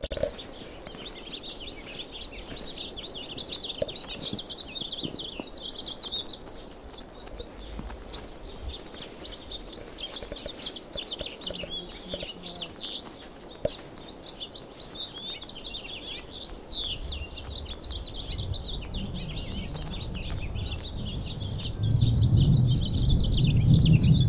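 A flock of small birds chirping and twittering steadily, many short calls overlapping. A low rumbling noise swells near the end and becomes the loudest sound.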